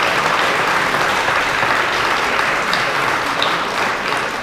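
A large audience applauding steadily, the clapping starting to die away near the end.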